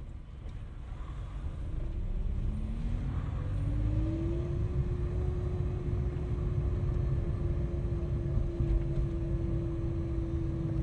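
A whine from the Great Wall Florid 1.5 VVT while driving, over road and engine rumble. It rises in pitch as the car gathers speed over the first few seconds, then holds steady. It is a noise that grows with speed, which the mechanic puts down either to a gearbox low on oil or to a power steering pump short of fluid.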